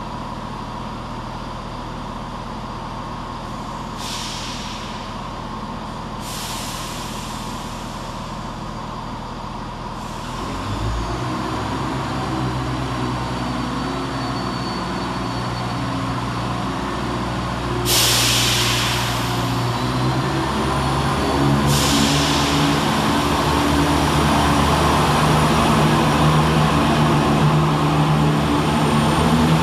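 ScotRail Class 170 Turbostar diesel multiple unit idling at the platform, with several short bursts of air hissing. About ten seconds in its underfloor diesel engines open up and it pulls away, the engine note rising and growing louder.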